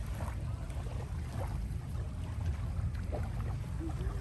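Wind buffeting the microphone: a low, uneven rumble with no clear tone.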